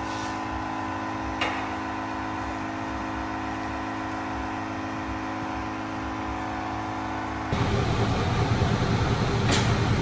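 Steady mechanical hum of running machinery, with a single click about a second and a half in. About seven and a half seconds in it gives way suddenly to a louder, rough rushing of pressure-washer spray.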